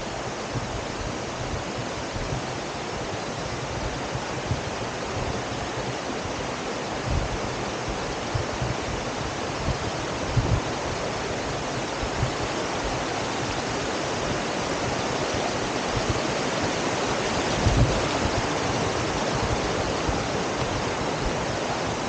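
Shallow creek water rushing over rocks: a steady, even wash, with a few brief low thumps.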